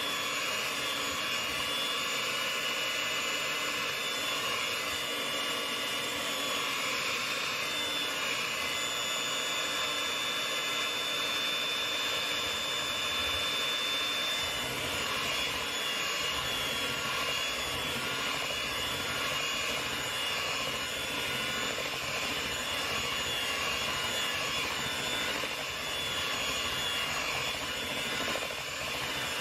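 Electric hand mixer running steadily, its beaters churning mashed sweet potato and milk into pie filling. It gives a continuous motor whine with several held high tones.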